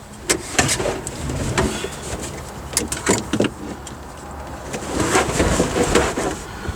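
Electrical cable being pulled and moved about by hand: rustling with scattered clicks and knocks, busiest about five seconds in.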